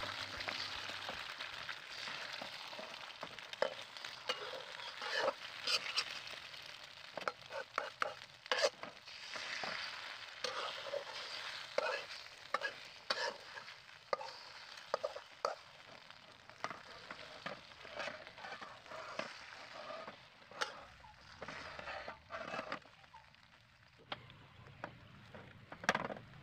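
An egg sizzling as it fries in hot oil in a wok, with a metal spatula scraping and clicking against the pan again and again. The sizzle dies down near the end.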